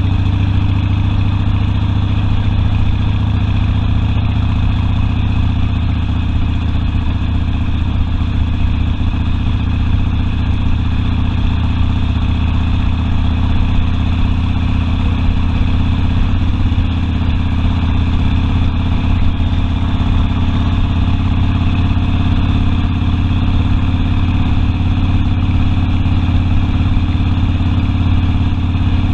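Harley-Davidson Sportster V-twin engine running steadily at an even pitch.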